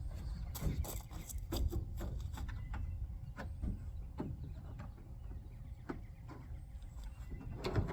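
Plastic drop-in bed liner being pushed and tucked into a pickup truck bed: irregular knocks, taps and scrapes of the plastic against the bed over a low steady rumble, with a sharper knock near the end.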